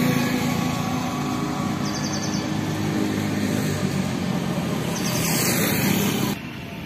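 Motor vehicles passing on the road: an engine hum fading away over the first few seconds, then a second vehicle swelling up, before the noise drops off suddenly near the end.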